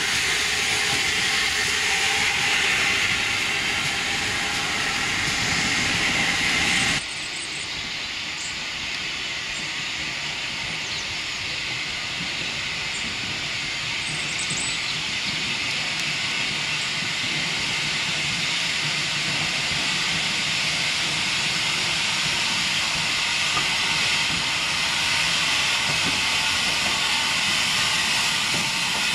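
Steam locomotive hissing steadily, with escaping steam. The sound changes abruptly about seven seconds in.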